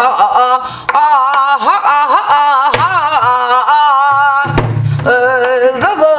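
A woman singing a Korean Namdo folk song in a held, ornamented line with wide vibrato and sliding pitch, accompanying herself on a buk barrel drum, which sounds a few low strokes about halfway through and near the end.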